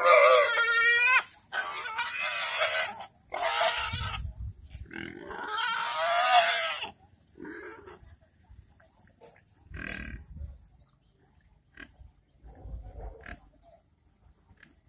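Young pigs squealing loudly in four long, harsh bursts over the first seven seconds, then a few quieter grunts.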